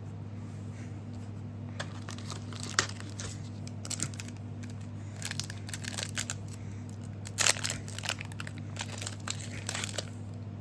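Foil booster-pack wrapper crinkling and tearing as a trading-card pack is opened by hand, in irregular crackly bursts that start about two seconds in, over a steady low electrical hum.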